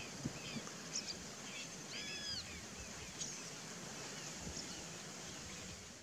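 Wild birds calling in a marsh: scattered short high chirps throughout, and about two seconds in one longer call that rises and then falls, over a steady background hiss.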